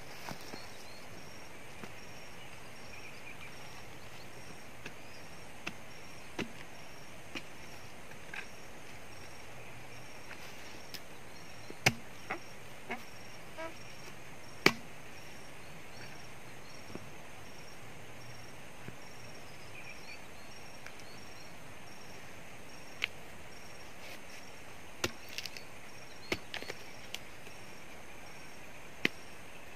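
Irregular sharp chopping strikes of a hand tool hacking at a tree stump and its roots in the soil, about a dozen spread out with long gaps, the two loudest near the middle and a cluster near the end.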